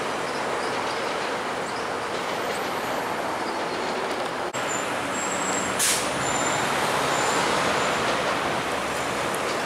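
Steady rumble and rail noise of GO Transit commuter trains on the tracks below, with a short sharp hiss about six seconds in.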